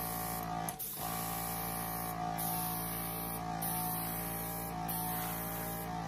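Master Airbrush compressor running with a steady motor hum, while air hisses from the airbrush in spurts as it is triggered to blow fluid paint. Everything drops out briefly about a second in.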